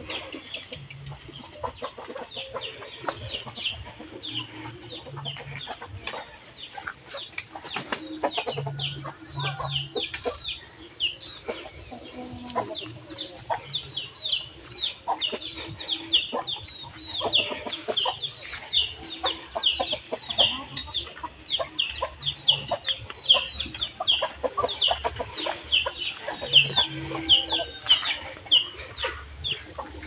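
Farmyard birds calling non-stop: many short, high, falling chirps, several a second, growing denser in the second half. Underneath, rustling and crackling as cattle pull at and chew dry straw.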